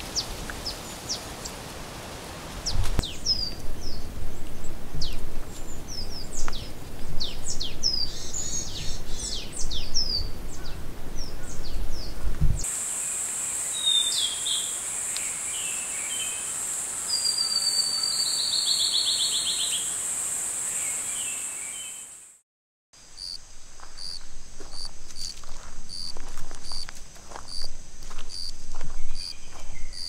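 Woodland ambience: small birds chirping in short falling calls, then a steady high insect buzz with more bird calls, including a quick falling trill. After a brief drop-out, insects chirp in an even pulse over footsteps on a leaf-strewn path.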